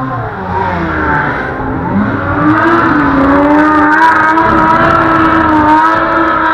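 Snowmobile engine running loud as it goes by, its pitch rising over the first few seconds and then holding steady.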